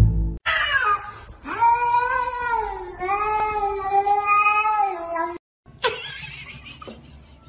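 A pet animal vocalizing: a short cry that falls in pitch, then one long, wavering drawn-out call of about four seconds that stops abruptly.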